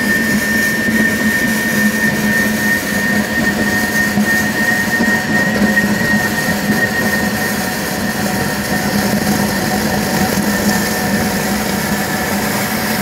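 Milwaukee M18 FUEL Packout 2.5-gallon wet/dry vacuum running steadily at full power with a high whine, sucking water up its hose from a bucket. The nozzle is held unsealed, so it draws air in along with the water.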